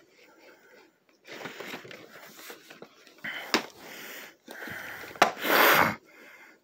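VHS tapes in cardboard sleeves being handled and set down on a wooden table: rustling, with two sharp knocks from about three and a half seconds in. A louder rushing burst comes near the end.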